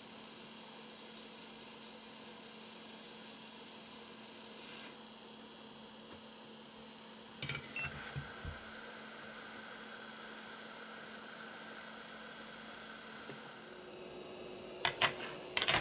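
Faint steady hum and air hiss from a JBC hot-air rework station blowing at 380 °C on an iPhone 7's U2 charging chip; the hiss eases a little about five seconds in. A few light clicks come about halfway through, and a quick cluster of clicks near the end.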